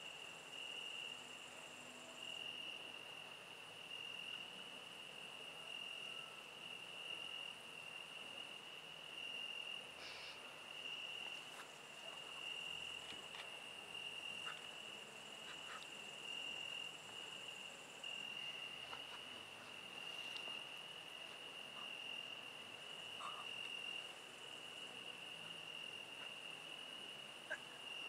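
Crickets chirping in a steady, pulsing high trill, with a fainter, higher-pitched insect song joining now and then and a few faint clicks here and there.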